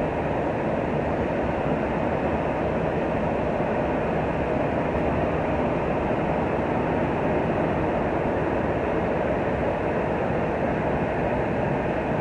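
Instrumentation cable twisting machine running at a steady pace: a dense, even mechanical noise with no breaks or changes.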